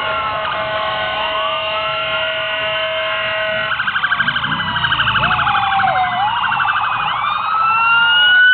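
Several police sirens sounding at once in overlapping rising and falling wails. A steady held tone runs under them for the first few seconds, then gives way to a fast pulsing yelp about four seconds in.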